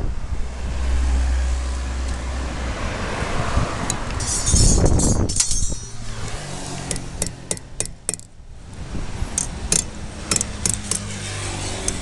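Hand banding tool working stainless steel strapping and its buckle. A loud scraping rasp about four to six seconds in, then a string of sharp metal clicks and clinks.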